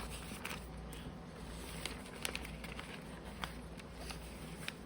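Magazine pages being handled and turned: soft paper rustling with scattered light clicks.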